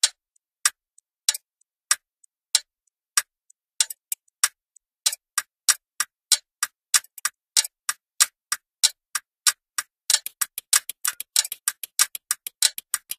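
Sharp, regular ticks, about one every two-thirds of a second at first, speeding up to two or three a second by the middle and to a fast patter of several a second near the end.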